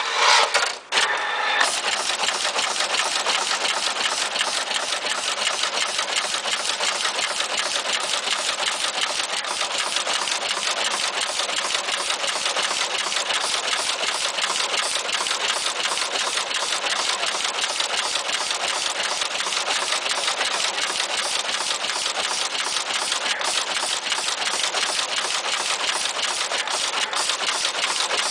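Automatic through-hole component insertion machine running, its insertion head clattering in a rapid, even rhythm as it cuts and inserts taped components into a circuit board.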